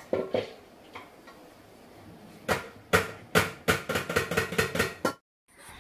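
Stainless-steel kitchen utensils knocking together, a steel pot and spoon: a few light clinks, then a run of about ten sharp metallic taps with a short ring, coming quicker, that stop abruptly.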